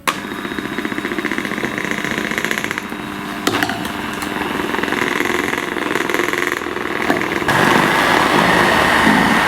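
Electric hand mixer running steadily in a bowl of muffin batter, mixing in the flour and nuts; it gets louder for the last two seconds.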